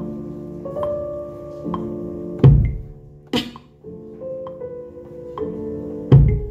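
Hip-hop beat playing back from a Maschine Studio: a slowed-down sampled loop of held keyboard-like chords, with a heavy kick drum about two and a half seconds in and again near the end, and a snare hit in between.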